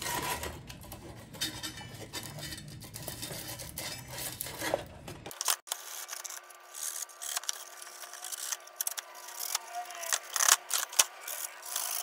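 Sandpaper rubbing back and forth on a gas water heater's pilot flame sensor in quick, repeated strokes. It is cleaning the rust and discolouration off the sensor, which the plumber blames for the heater not working.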